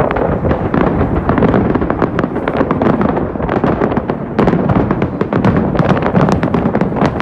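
Aerial fireworks going off in a dense, rapid barrage of bangs and crackles, one burst on top of another with a low rumble underneath.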